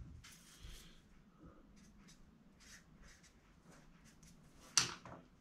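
Faint clicks and rustling of a saw chain and small tools being handled on a workbench while a cutter is measured, with one sharper click near the end.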